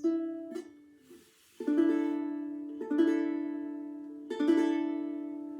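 Tenor ukulele playing the closing chords of a song: four strummed chords a second or so apart, the last left ringing and slowly dying away.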